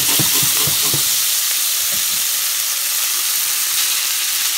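Egg noodles sizzling steadily in a hot pan with fried onion, with a few light knocks in the first second.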